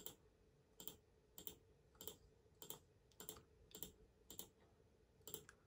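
Faint computer-mouse button clicks, about nine at an even pace of a little under two a second. Each click picks one character of a password on an on-screen keyboard.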